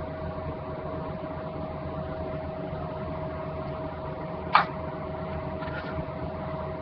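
Steady mechanical hum with a constant tone running under everything, and one sharp click about four and a half seconds in.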